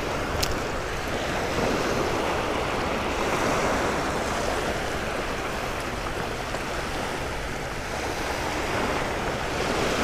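Shallow surf washing up over the sand in a steady wash of small waves.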